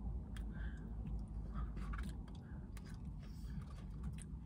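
A person chewing a mouthful of burger, with scattered small clicks and crinkles from a cardboard burger box being handled, over a steady low rumble.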